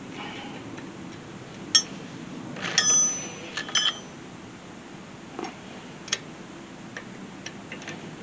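Metal tools clinking against metal: a sharp clink about two seconds in, a cluster of clinks that ring briefly around three to four seconds in, then scattered light ticks.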